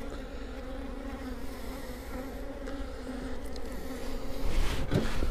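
Honeybees buzzing steadily around an open hive, a swarm of wingbeats forming one continuous hum. A brief rustle comes near the end.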